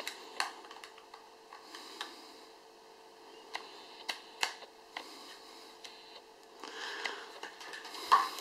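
Small plastic clicks and taps as a USB cable plug is fitted into a phone's wall charger and handled, a few scattered over the first five seconds, then a soft rustle near the end.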